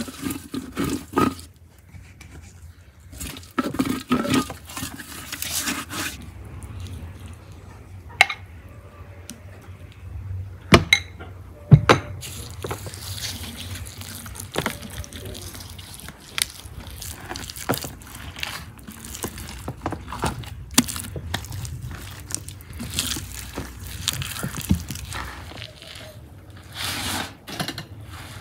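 Hands rubbing a wet red marinade over a whole raw lamb carcass and working inside its cavity: irregular wet handling sounds, with a few sharp knocks, the loudest about twelve seconds in.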